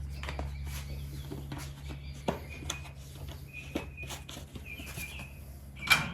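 Scattered clicks and knocks of hand work on the car, the loudest just before the end, over a steady low hum. Short bird chirps come a few times in the middle.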